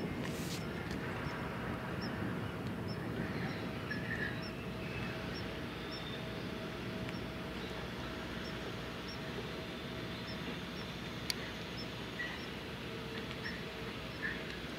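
Steady low drone of the training ship Yuge Maru's engines as she passes close by, with a steady hum running through it. Faint bird chirps are scattered over it, and there is one sharp click near the end.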